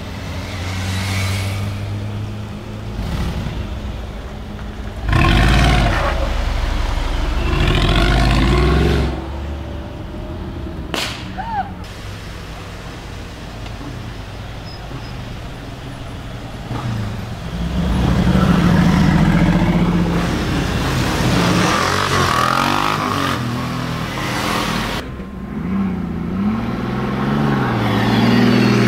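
Brabus-tuned Mercedes-AMG engine idling and blipped in sharp revs a few seconds in and again shortly after. It then gives a long loud burst of engine sound after the middle, and more revs near the end.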